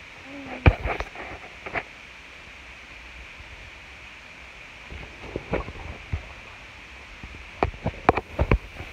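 Scattered knocks and bumps from a phone being handled close to its microphone, a few near the start and a quick cluster near the end, over a steady background hiss.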